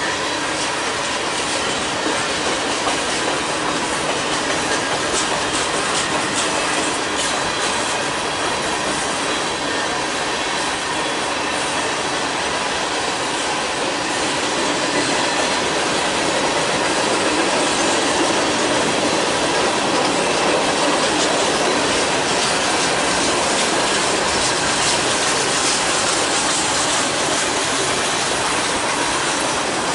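Freight train's boxcars rolling past close by: a steady rumble of steel wheels on rail with scattered clicking, a little louder midway through.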